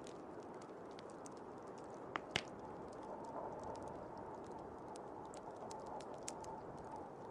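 Wood fire crackling: scattered small pops and ticks, with two louder snaps a little after two seconds, over a steady rushing of blizzard wind.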